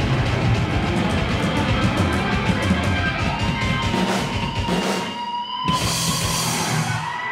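Live rock band with electric guitar and drum kit playing. About five seconds in, the drums and low end drop out, leaving a held guitar note and a ringing cymbal crash as the song ends.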